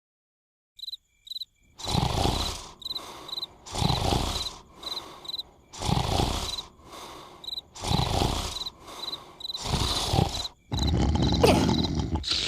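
Cartoon snoring: five loud snores, about one every two seconds, with crickets chirping in the gaps. After about eleven seconds the snores give way to a louder, continuous jumble of sound.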